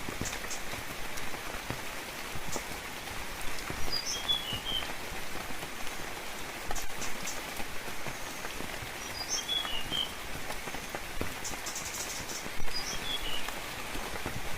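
Steady rain falling, with scattered drips. A bird calls over it in short chirping phrases of a few high notes, about four times, roughly every four seconds.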